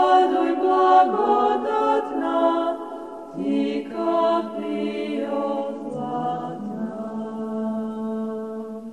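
Several voices singing a Serbian Christmas hymn together in harmony, with long drawn-out notes. It ends on a long held chord.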